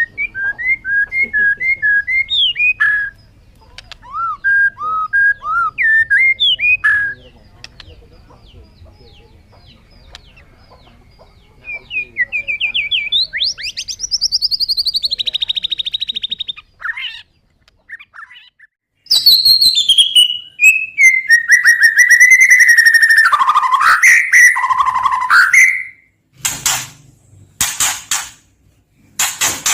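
White-rumped shama (murai batu) singing in varied phrases: runs of quick whistled notes, a rising trill, a long descending whistle, then several short harsh notes near the end.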